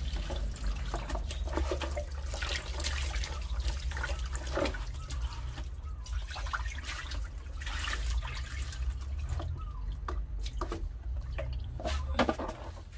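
Water from a hose running and splashing into a plastic basin as goat innards are rinsed and sloshed by hand. About six seconds in, the basin is tipped and the water pours out. A steady low rumble runs underneath.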